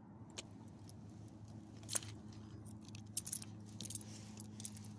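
Metal dog-leash clip and collar hardware jingling and clinking in a few scattered bursts as the dog moves, over a steady low hum.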